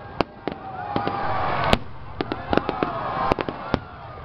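Fireworks display: about a dozen sharp bangs and cracks from bursting shells at irregular intervals, the loudest a little under two seconds in.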